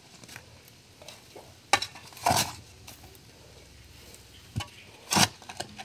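Hand hoe blade scraping and chopping into dry, clumpy soil: a few short crunching scrapes, the longest about two and a half seconds in.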